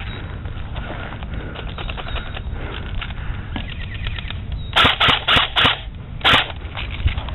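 Airsoft guns firing: scattered faint shots, then five loud, sharp shots in quick succession about five seconds in, the last a moment apart from the others. Low rumble of wind or handling on the microphone underneath.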